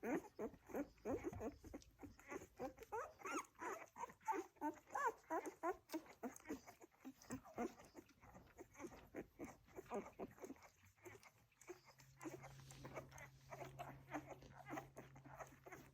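Welsh springer spaniel puppies squeaking and whimpering while nursing: many short high squeaks rising and falling in pitch, thinning out after about ten seconds. A low steady hum comes in about eleven seconds in.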